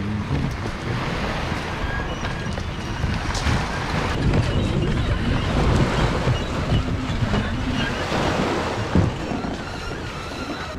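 Wind buffeting the microphone over small waves washing up a shingle beach, with one sharp knock about nine seconds in.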